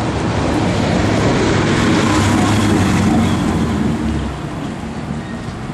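Large box truck driving past close by, its engine and tyre rumble building to a peak around the middle and falling away after about four seconds.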